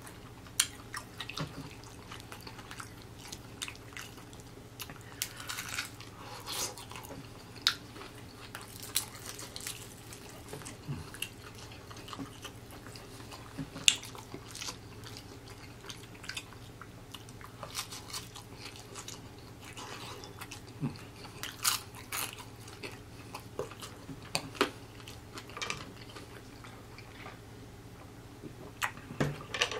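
Close-up chewing and biting of crispy fried chicken, with irregular sharp crunches of the breading and mouth sounds scattered throughout, over a faint steady low hum.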